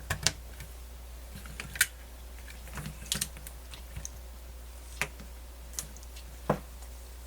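Scattered small, sharp plastic clicks and taps, about ten at uneven intervals, from handling the MiniDisc Walkman and its headphone remote, over a steady low hum.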